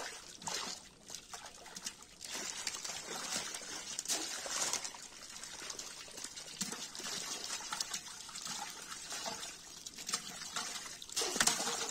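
Shallow pond water splashing and trickling in small, irregular splashes as hands scoop small fish out of a seine net and drop them into plastic baskets and a water-filled metal bowl, with a louder splash near the end.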